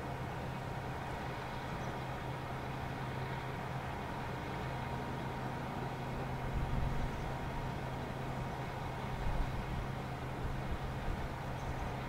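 Steady low engine hum of motor traffic in the city and on the harbour below, with a couple of brief louder low rumbles about six and a half and nine seconds in.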